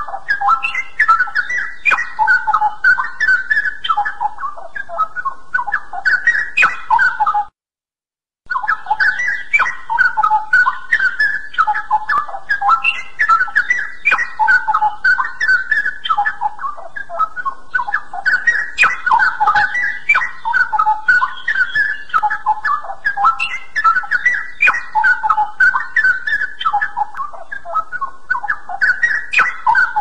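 Straw-headed bulbul (cucak rawa) singing a loud, continuous run of rich, quick-changing whistled warbles. The song breaks off for about a second of dead silence some seven and a half seconds in, then carries on.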